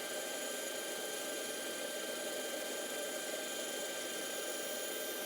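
A woodworking machine running with a steady whir and no change in load, as a block of hardwood is prepared for the lathe.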